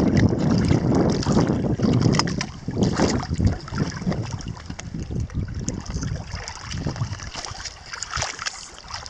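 Shallow lake water splashing and lapping against shoreline rocks, with wind rumbling on the microphone; louder for the first few seconds, then softer.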